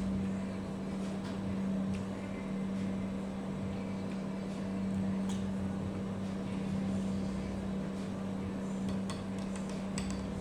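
Steady machine hum with one strong low pitch, with a few faint light clicks.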